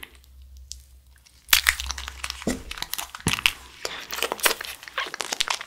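Plastic wrapper of a fruit-shaped jelly crinkling and crackling as it is squeezed and sucked at the mouth, a dense run of sharp crackles starting about a second and a half in.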